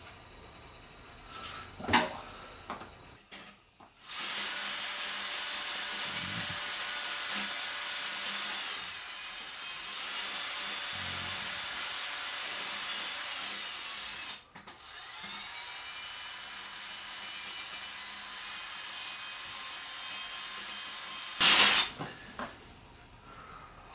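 Electric drill running steadily in two long stretches, about ten and six seconds, with a brief stop between them, then a short loud noise near the end.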